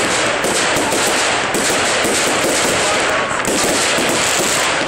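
Fireworks going off in a continuous rapid barrage, a dense unbroken string of bangs and crackles.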